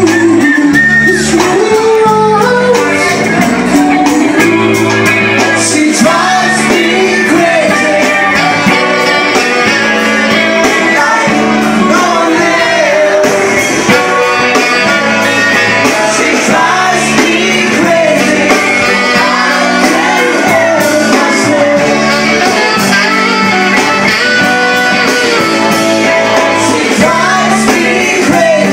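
Live band playing loudly: a singer over electric guitars, recorded close up on a mobile phone.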